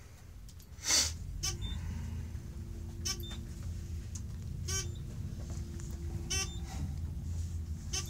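Elevator car starting its descent: a sharp knock about a second in, then the steady low hum of the car travelling, with a short electronic beep repeating about every second and a half.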